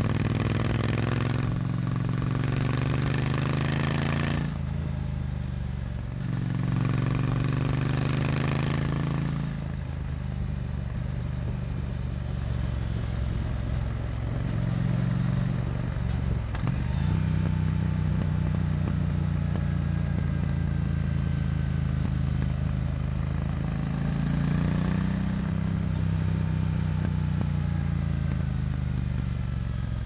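Triumph Bonneville T100's 900 cc liquid-cooled parallel-twin engine on its stock catalysed exhaust, pulling hard through the gears with a drop in pitch at each upshift, at about 4 and a half and 9 and a half seconds in. It then runs at a steadier cruise, rises again on a short pull a little past halfway, and falls away as the throttle is eased off near the end.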